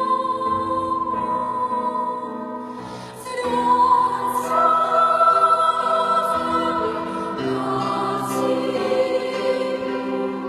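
Choral music: a choir singing long, held notes in slow phrases, with a brief softening about three seconds in before the next phrase swells.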